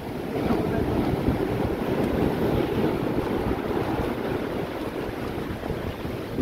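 Rough surf breaking and washing in at high tide: a steady rush of water, with wind rumbling on the microphone.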